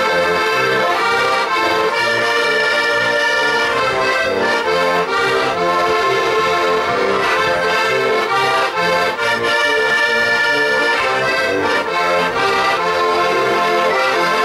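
An ensemble of diatonic button accordions (heligónky) playing a lively folk tune together, the reeds sounding many notes at once over a steady, regularly alternating bass.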